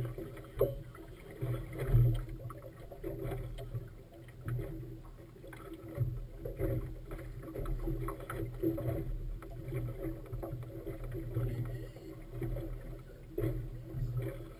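A committee boat on choppy water: a steady low engine hum under irregular splashes and slaps of water against the hull, with a couple of louder splashes early on.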